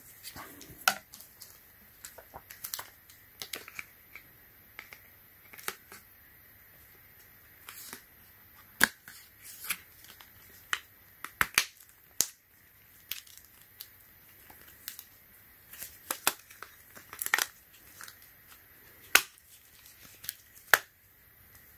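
Irregular sharp clicks and taps of a rugged plastic phone case being handled and pressed onto a Samsung Galaxy Z Flip 6 folding phone, with light crinkling in between.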